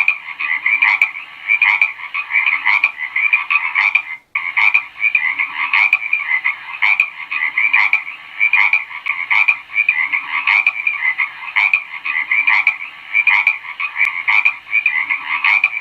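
Frogs croaking, one call repeating a little faster than once a second, with a brief break about four seconds in.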